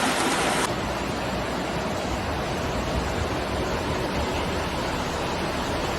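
Rushing floodwater: a steady, dense rush of water noise. About two-thirds of a second in, the sound changes abruptly and its high hiss drops away.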